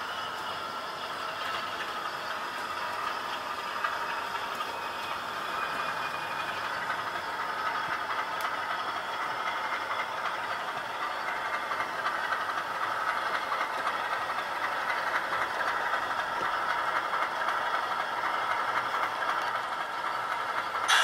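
Model railway locomotive running along the track: the small electric motor whirs and the wheels rattle over the rail joints, getting steadily louder as it approaches.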